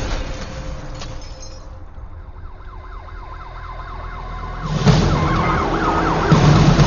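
A siren-like alarm whoops in fast repeated rising sweeps, about four a second, as the rumble of an explosion fades. About five seconds in, a loud crash breaks in, and the alarm keeps going over a low rumble.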